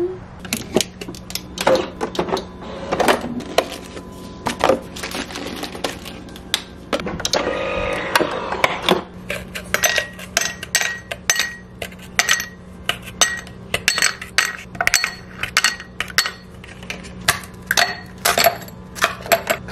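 Ice cubes being pushed out of an ice cube tray and dropping into a tall drinking glass: a quick run of sharp clinks and knocks against the glass, coming thick and fast in the second half.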